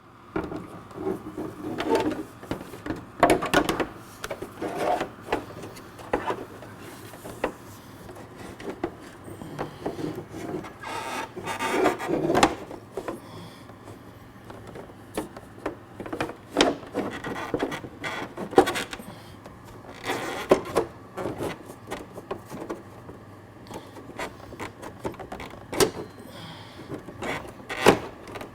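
Plastic body panels on a 2020 Can-Am Spyder RT Limited being worked back into place by hand: irregular knocks and clicks with rubbing and scraping in between.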